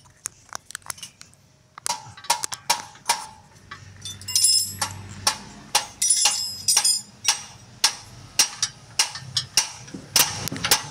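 Metal-on-metal knocks and clanks from hand tools on steering and suspension parts: irregular sharp strikes coming two or three a second, several ringing briefly.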